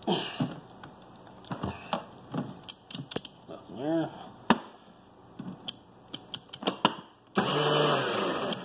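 Sharp plastic clicks and knocks from the Power Wheels forward/reverse switch and shift lever being handled and worked. About seven seconds in, the ride-on's electric drive motor and gearbox run for about a second with a steady whir while the other side's motor is tested.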